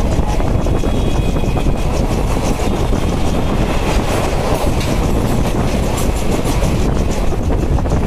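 Passenger train running at speed, heard from inside the coach: a steady rumble with the wheels clicking over rail joints.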